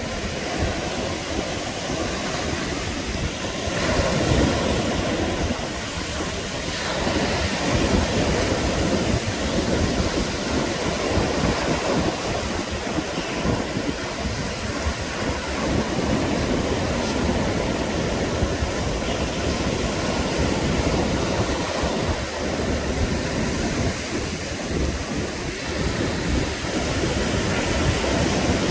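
Sea surf breaking and washing onto the beach in a continuous rush that swells and eases, with wind rumbling on the microphone.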